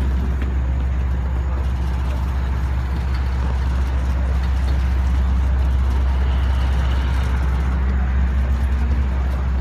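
LIRR diesel passenger train standing at the platform, its engine and head-end power running in a steady low hum.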